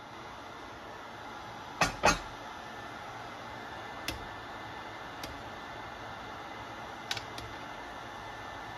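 A glass-and-steel pot lid set down with two loud clanks about two seconds in, then a few light taps of a utensil against a stainless skillet as chicken pieces are stirred in sauce, over a steady hiss.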